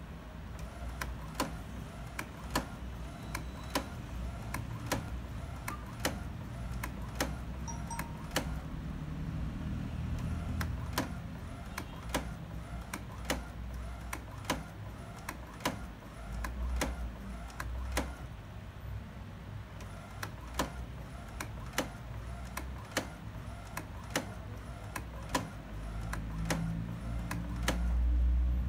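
Inkjet printer printing a photo: the print carriage motor runs with a low hum while the mechanism clicks regularly, roughly every half to three-quarters of a second, as the sheet is fed out.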